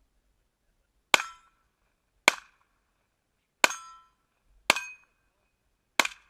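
Five pistol shots, fired about a second apart, each followed by a short ringing tail.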